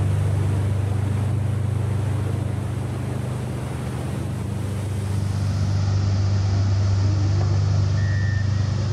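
Roar of a big waterfall and whitewater rapids: a deep, steady rumble under a constant rushing hiss.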